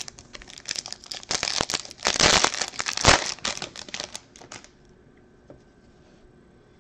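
Foil wrapper of a baseball card pack being crinkled and torn open. The crackling is loudest about two to three seconds in and stops about four and a half seconds in.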